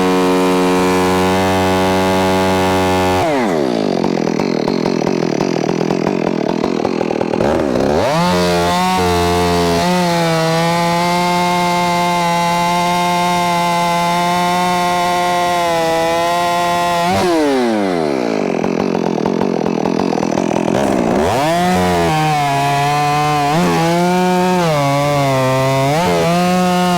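Stihl MS461 two-stroke chainsaw running hard, bucking green ash logs. The revs drop sharply twice, about three seconds in and again past the middle, climb back each time, and waver up and down near the end.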